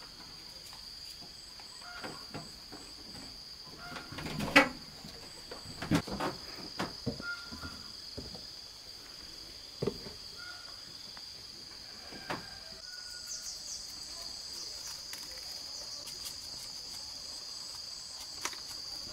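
A steady high-pitched insect drone, with scattered knocks and clinks of seasoning jars and bottles being picked up and set down on a wooden counter; the loudest knock comes about four and a half seconds in.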